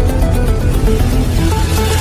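Electronic background music with a steady beat and synth notes, a rising noisy swell building toward the end.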